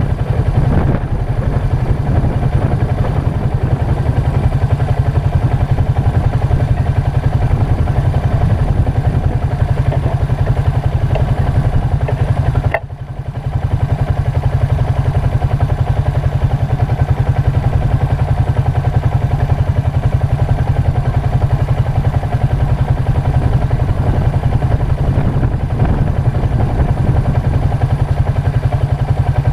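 ATV (quad) engine running steadily, with a dense low rumble and an even pulse, briefly dropping out about thirteen seconds in.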